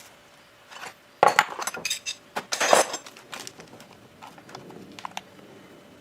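Clattering and clinking of small hard parts and tools being handled, in a burst of quick knocks from about a second in for nearly two seconds, then a few light clicks.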